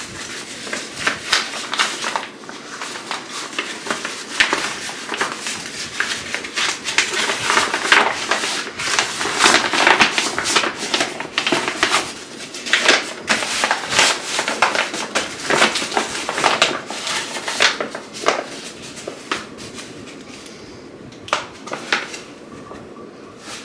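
Rustling and crinkling as a set of collapsible fabric storage baskets is unwrapped and handled: dense, irregular crackles that thin out over the last few seconds.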